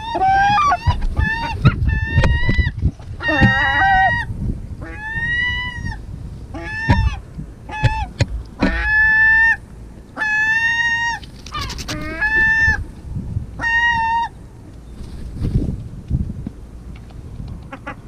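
Herring gulls calling close by: a run of loud, honking calls, one to two a second, that stops about three-quarters of the way through, with a few sharp knocks among them.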